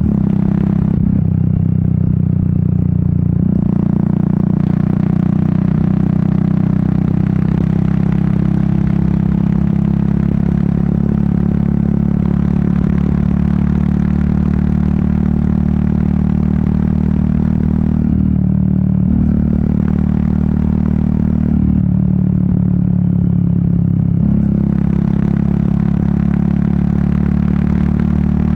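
Royal Enfield Meteor 350's air-oil-cooled single-cylinder engine and exhaust running under way, the engine note stepping up and down in pitch several times as the throttle changes.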